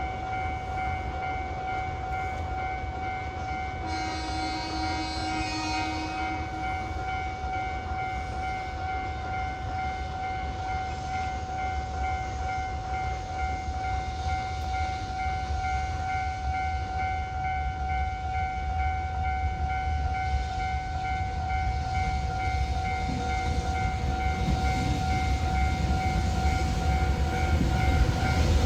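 A level-crossing warning bell rings steadily throughout. About four seconds in, a train horn sounds for about three seconds. The rumble of an approaching train grows louder toward the end.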